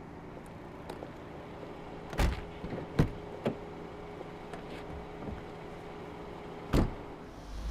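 SUV doors being shut: a heavy thud about two seconds in, a sharper knock a second later with a lighter one after it, and another thud near the end as the driver's door closes.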